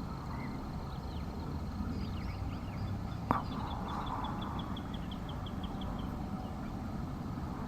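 Outdoor birdsong: scattered chirps and a rapid, even trill of about a dozen short notes lasting a couple of seconds, over a steady low rumble. A single sharp click about three seconds in.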